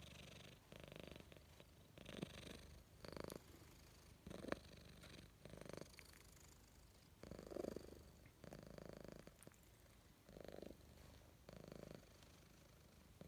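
Domestic cat purring contentedly while its chin and cheek are scratched. The purr is faint and swells with each breath, roughly once every second and a half.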